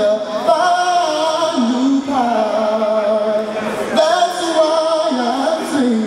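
A man singing a slow, wordless gospel-style melody a cappella, drawing out long, sliding notes in three phrases of about two seconds each.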